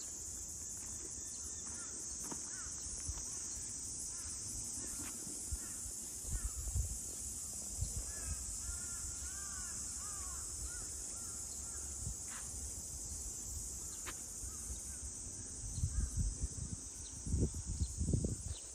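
A steady high-pitched insect drone, with a bird calling a few times around the middle. Low rumbles come in near the end.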